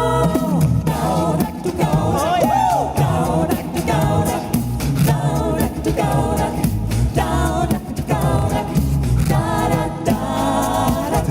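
A cappella vocal group singing a German folk song in harmony over a low bass line, with a rhythmic percussive beat of clicks. About two seconds in, one voice slides up and back down.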